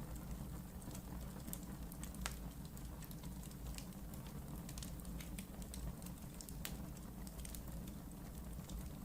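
Wood fire burning in a fireplace: a steady low rumble of the flames with irregular sharp crackles and pops from the burning logs, a few of them louder.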